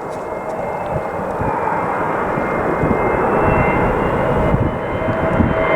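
A landing airliner's engines approaching, a rumbling roar with a steady high whine that grows steadily louder.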